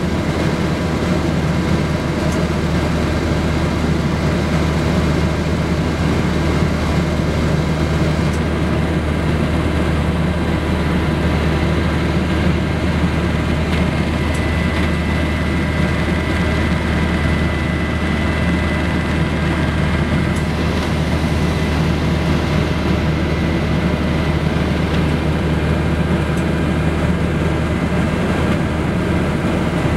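Steady cabin drone of the Grumman G-1 (Gulfstream I) research aircraft's twin turboprop engines in level flight: a constant low rumble with a fixed whine above it.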